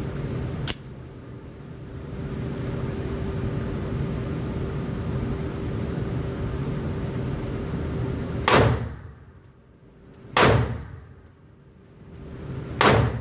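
Three shots from a Palmetto State Armory Dagger 9mm pistol in an indoor range booth, spaced about two seconds apart, each loud and sharp with a short ringing tail. Before them there is a click early on, then a steady hiss with a low hum.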